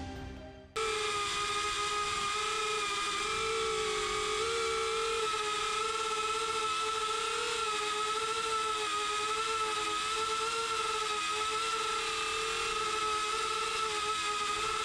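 Quadcopter drone's propellers whining steadily, the pitch wavering slightly. The drone takes over as fading background music cuts off just under a second in.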